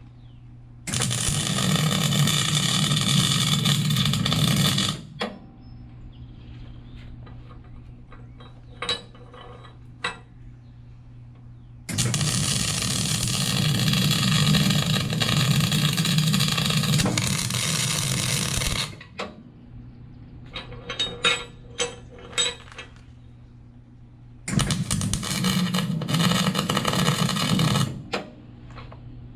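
MIG welder arc crackling as beads are laid on steel, from a Miller-Matic 252: three runs of about four, seven and four seconds, with a few short crackles between them.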